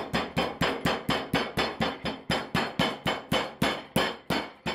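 Metal meat tenderiser mallet pounding chicken thigh fillets on a plastic cutting board, in rapid, even strikes about five a second.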